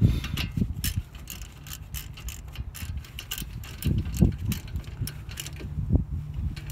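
A hand ratchet clicking in short irregular strokes as the 14 mm caliper bolts are tightened, with a few dull knocks of tool and hand against the brake caliper. A steady low hum runs beneath.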